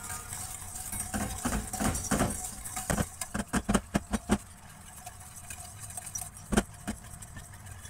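Wire whisk stirring warm milk in a stainless steel pan, clicking and scraping against the metal in a quick run of strokes. The clicks thin out partway through, with one sharp knock near the end. The milk is being stirred to dissolve sugar and gelatin without lumps.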